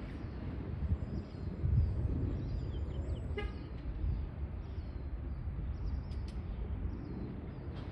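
Garbage truck's horn giving one short toot about three seconds in, over a steady low rumble.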